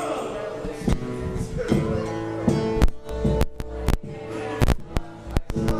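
Guitar strummed as a song's intro: chords ringing, then, about three seconds in, a run of sharp, choppy strokes with short gaps between them.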